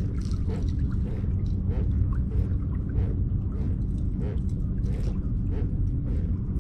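Steady low rumble of a Hobie Pro Angler 14 pedal kayak moving through calm water, with a soft rhythmic knock about twice a second and scattered light ticks.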